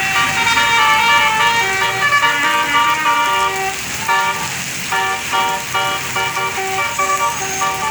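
Bus telolet musical air horn of the Basuri type playing a tune of short held notes, one after another, changing pitch.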